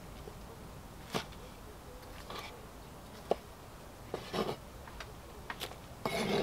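Kitchen knife cutting tomatoes on a wooden chopping board: a few irregular knocks of the blade against the board, about a second apart.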